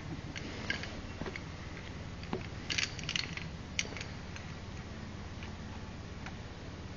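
A steady low engine drone, with scattered sharp clicks and snaps over it; the loudest are a quick cluster about three seconds in and a single click soon after.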